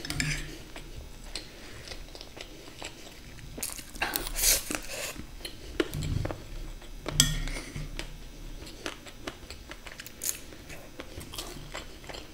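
Steel spoon clinking and scraping against a glass bowl as sweet vermicelli is scooped up, with close-up chewing and mouth sounds. Sharp clicks come scattered throughout, with louder bursts about four, seven and ten seconds in.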